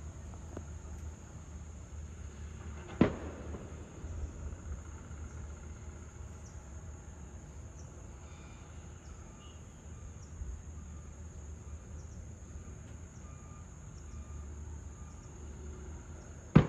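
Steady high-pitched insect trill over a low rumble. A sharp knock sounds about three seconds in and again near the end.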